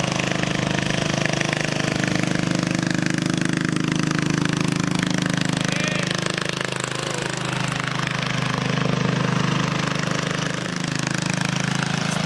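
1969 Sears Custom 10XL garden tractor's Tecumseh engine running steadily as the tractor is driven, with a fast, even firing beat. It runs on an aftermarket electronic ignition kit fitted in place of its burnt-out original coil.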